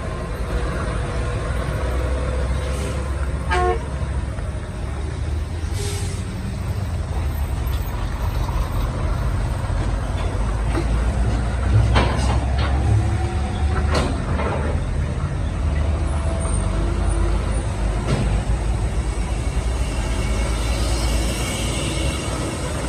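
Heavy truck engines running with a steady low rumble as sugarcane trucks work through a sharp bend, with a few brief sharp sounds and a short higher tone about three and a half seconds in.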